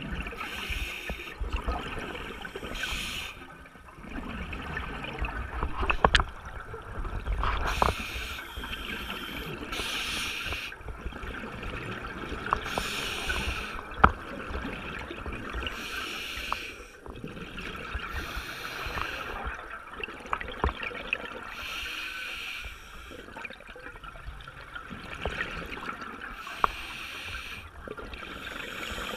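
Scuba diver breathing through a regulator, heard underwater: a hissing, bubbling burst every two to three seconds. A few sharp clicks are scattered through, the loudest about halfway.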